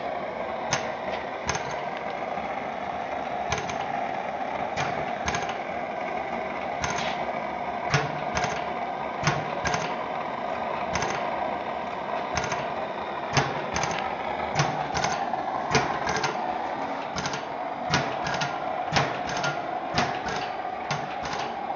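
Blaisdell engine-compressor running: sharp mechanical clacks at uneven intervals, about one or two a second, over a steady hiss.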